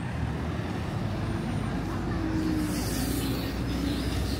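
Steady road traffic noise from passing vehicles, with a faint engine tone and a brief hiss about two and a half seconds in.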